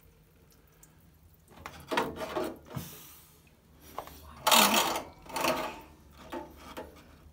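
Hand-working noises at a washing machine's heating-element opening: several irregular bursts of scraping and rattling as stray wire caught behind the drum is probed and pulled out, the loudest about four and a half seconds in.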